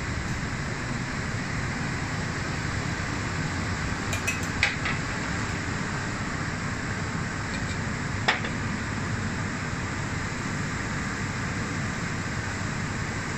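Steady kitchen background noise with a few light metallic clinks of tongs and pans during plating: a small cluster about four seconds in and one sharp clink about eight seconds in.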